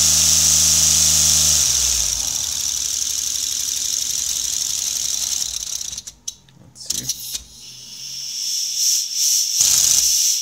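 LEGO pneumatic engine running on compressed air with a steady pitched hum, with a loud hiss of escaping air over it. About two seconds in the hum stops and the hiss runs on alone. From about six seconds in the air comes in short on-off bursts. The builder finds one air leak, probably at a valve switch, that keeps the engine below 1800 RPM.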